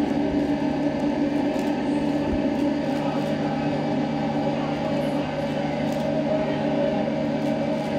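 Ship's engine running with a steady low drone of several even tones.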